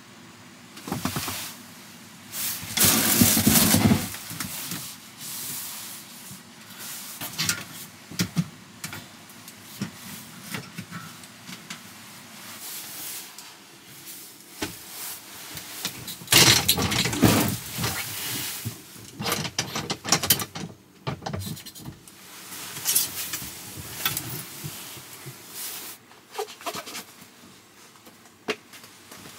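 Irregular rustling, knocks and clicks of things being moved and handled, with louder rustling bursts about 3 seconds in and again about 16 seconds in.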